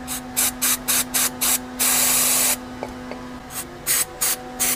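Aerosol can of throttle body and air intake cleaner hissing as it is sprayed into a removed idle air control valve to dissolve its deposits. There is a quick run of about six short squirts, one longer spray of under a second in the middle, then four more short squirts near the end.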